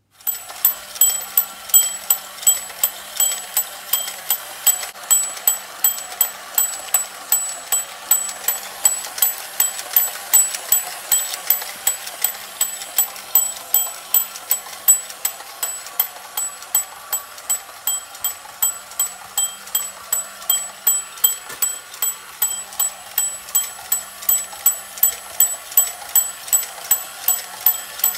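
M-T Co. Pierrot Monkey Cycle battery-operated tin toy running: its small electric motor hums steadily while its tinkling bell mechanism rings with a sharp strike about two to three times a second.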